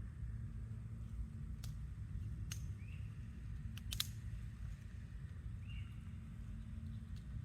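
Outdoor woodland ambience: a steady low rumble with a few sharp clicks or snaps scattered through, the loudest about four seconds in, and two short bird chirps.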